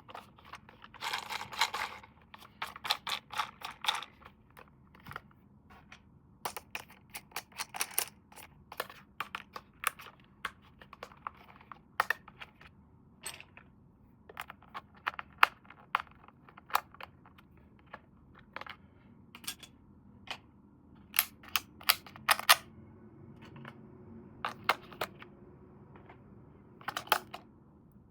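Irregular clicks, taps and crinkling from hands handling a plastic RC toy car and its packaging, with brief stretches of rustling near the start.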